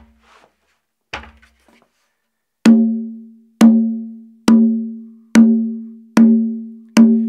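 Conga drum struck with six evenly spaced open tones, each a clear ringing note that dies away over about a second. The drum stands on a hard-rubber faux wood slice, which gives it a resonant tone.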